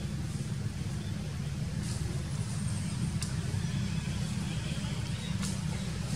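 Steady low rumble, with a few faint clicks over it.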